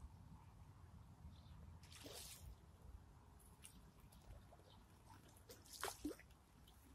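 Near silence at the pond's edge, broken by faint water splashes and drips, one about two seconds in and a clearer one near six seconds.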